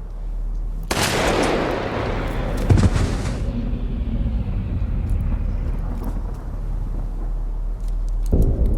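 A loud blast about a second in, its noise dying away over the next few seconds into a lasting low rumble.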